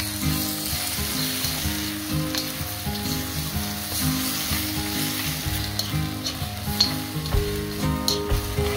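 Shrimp, peppers and onion sizzling in a hot wok as they are stir-fried with a wooden spatula, with a few sharp taps and scrapes of the spatula against the pan, over light background music.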